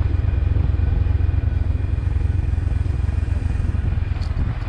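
Steady running of a motor vehicle on the move, its engine and road noise a loud, even low rumble.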